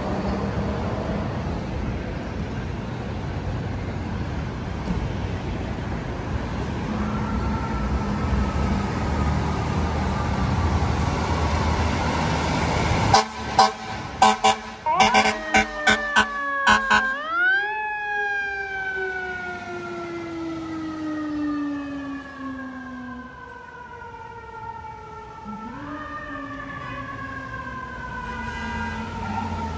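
Fire apparatus responding: traffic and diesel engine noise with a faint siren, then about 13 seconds in a rapid string of loud, short horn blasts lasting about four seconds. A siren follows that winds up quickly and slowly falls away, rising again twice.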